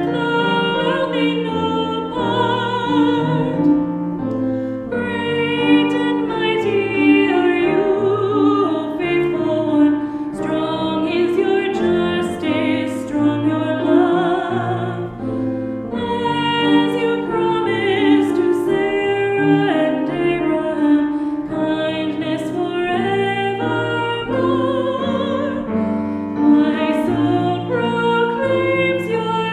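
Music: singing voices with piano accompaniment, a worship song sung continuously with vibrato.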